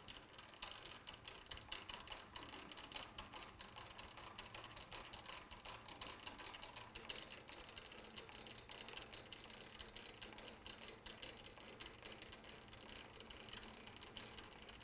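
Faint, rapid, irregular clicking and ticking from a lathe's cross slide being cranked back and forth by its handwheel and leadscrew.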